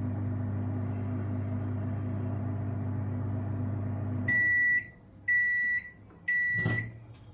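Microwave oven running with a steady hum that stops about four seconds in, followed by three beeps signalling the end of the cooking cycle. A sharp knock sounds during the third beep.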